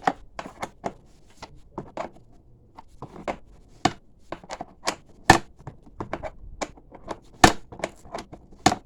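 Hand tools clicking and knocking on metal in irregular strokes as 10 mm seat bolts are undone, with two louder knocks about five and seven and a half seconds in.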